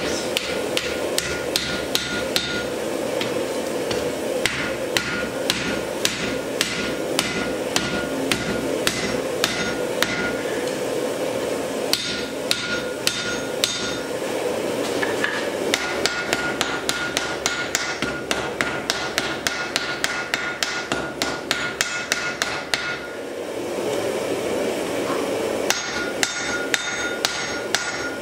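Hand hammer striking red-hot wrought iron on an anvil in a quick, steady rhythm of about three to four blows a second, the anvil ringing with a clear tone under the blows. The hammering stops briefly a few times, over a steady hum.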